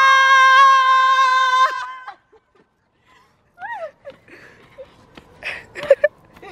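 A girl's voice holding one long, loud, high-pitched note for about two seconds, then breaking off. About halfway through comes a short rising-and-falling vocal sound, followed by a few faint sounds.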